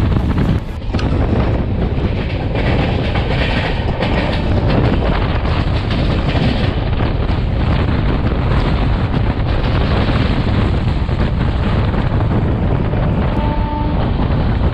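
Running noise of a moving Shatabdi Express passenger train heard from the open coach door: steady rumble with the wheels clattering over the rail joints, and wind rushing past the microphone.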